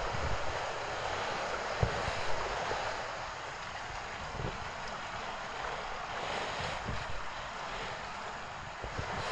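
Footsteps crunching through fresh snow at an uneven pace, with a few soft low thumps, over a steady rushing background noise.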